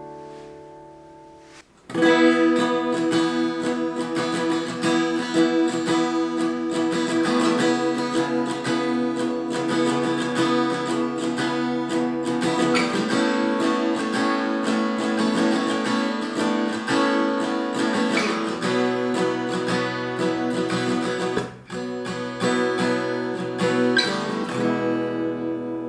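Sigma GTCE acoustic guitar being strummed. A chord rings out and fades, then steady chord strumming starts about two seconds in and runs with several chord changes, breaking off briefly about three-quarters of the way through.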